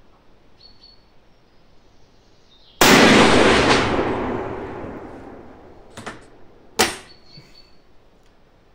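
A single rifle shot from a Mauser bolt-action rifle in .300 Savage, about three seconds in, with its echo dying away over about two seconds. It is followed by two sharp clicks about three and four seconds later as the bolt is worked.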